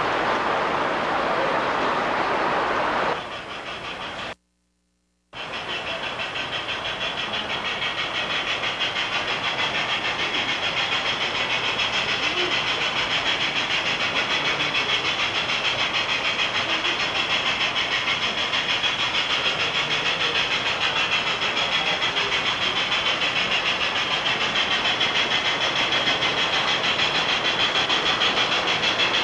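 O scale model trains rolling on the layout track: a steady, rapid clicking rattle of wheels and running gear. The sound cuts out completely for about a second around four seconds in, then comes back and grows louder over the next several seconds as a model freight train approaches.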